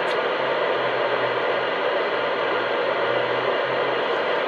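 Steady hiss of radio static from a CB radio receiver, cut off above the voice range, with a faint low hum under it.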